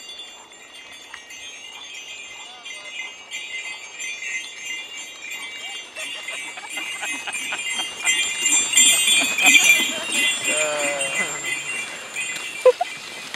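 Sleigh bells on a horse team's harness jingling as the horses trot through snow pulling a bobsleigh, with hoofbeats among the jingling. The jingling grows louder about eight seconds in.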